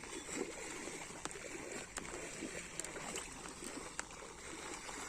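Shallow pond water sloshing and trickling, with scattered small clicks and knocks, over a steady high hiss.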